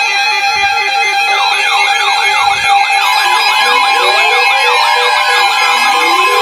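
Weather alert radios going off for a severe thunderstorm warning: several steady alert tones and on-off beeps sound together, joined about a second in by a fast warbling electronic siren that goes up and down a few times a second.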